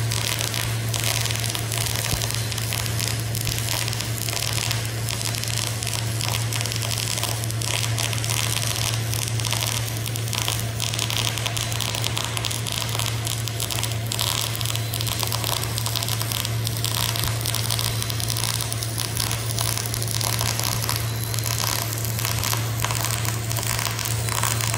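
MIG (GMAW) welding arc burning continuously through a single-pass weld on metal plate: a steady crackling sizzle with a constant low hum underneath, unbroken throughout.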